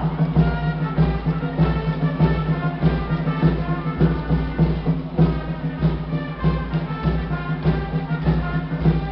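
A baseball player's cheer song playing, with a steady, heavy drum beat under a brass-like melody.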